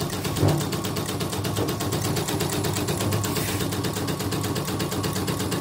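Yoko portable embroidery machine running with its housing off, stitching on a test run after repair: a rapid, even mechanical clatter from the exposed needle bar and gears over a steady low motor hum.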